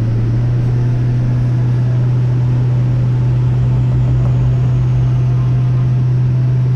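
Boat motor running at a steady speed while underway, a loud constant low hum over a rush of noise that does not change.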